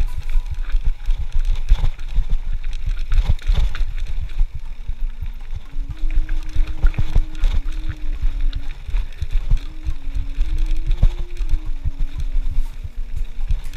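Wind buffeting the action camera's microphone, mixed with irregular knocks and rattles from a Specialized Stumpjumper FSR full-suspension mountain bike riding fast over rough dirt trail. From about five seconds in, a faint tune of stepped notes plays underneath.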